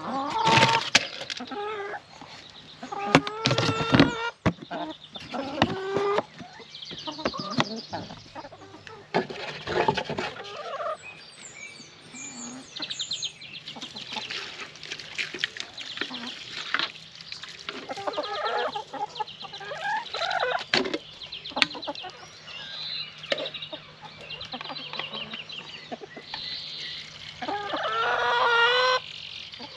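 Chickens clucking and calling, with a louder run of calls near the end.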